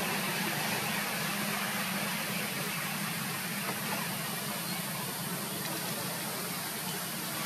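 Steady background hiss with a low, even hum underneath, unchanging throughout.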